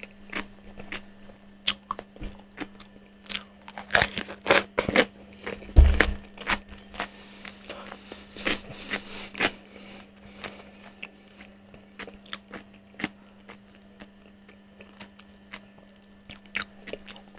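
Close-miked chewing of a mouthful of crispy fried food, with many short crackling crunches, thickest a few seconds in and loudest about six seconds in, then thinning out. A faint steady hum runs underneath.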